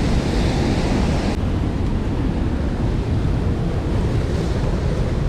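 Whitewater rushing through a small creek's rapids: a loud, steady rush with a heavy low rumble. The higher hiss drops suddenly a little over a second in.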